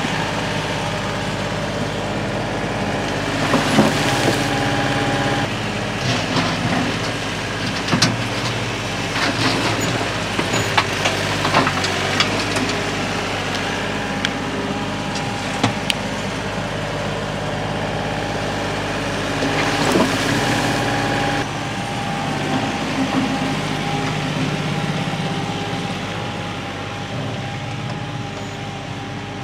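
Compact diesel tractor engine running while its front-end loader dumps dirt and rocks around a post, with clatters and knocks of rocks landing in bursts. The engine fades over the last few seconds as the tractor moves off.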